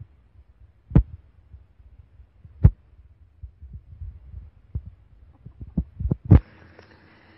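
Dull thumps at irregular intervals over a low rumble, with a quick cluster of them near the end, the last the loudest.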